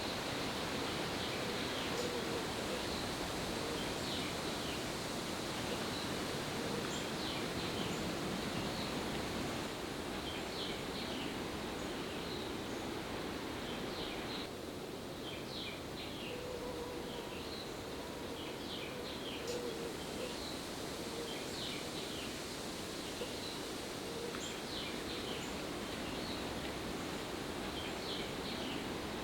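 Outdoor natural ambience: a steady hiss with many short, high-pitched chirps from wild animals scattered throughout.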